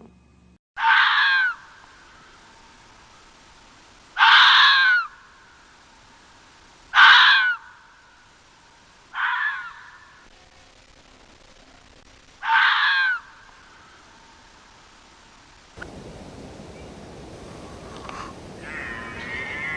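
Crow cawing: five harsh caws of under a second each, a few seconds apart. About three-quarters of the way in, a different recording starts with a steady background hiss.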